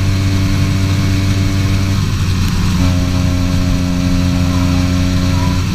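80cc two-stroke kart engine running hard at steady high revs down the straight, with wind rushing over the onboard microphone; about two seconds in the note breaks briefly and settles at a slightly lower steady pitch.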